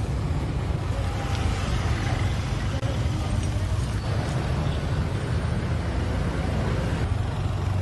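Steady low engine rumble, like a motor vehicle running, with no sharp events.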